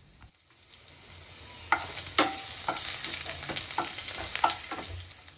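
Sliced garlic and nigella seeds sizzling in hot oil in a frying pan, the sizzle building over the first second or two. A spatula stirring them gives several sharp clicks and scrapes against the pan.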